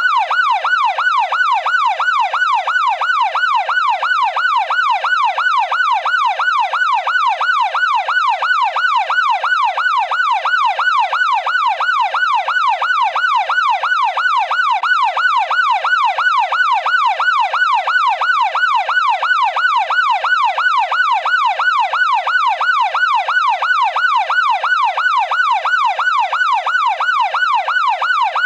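Police car siren in its fast yelp mode: one pitched tone sweeping rapidly and evenly up and down, repeating without a break.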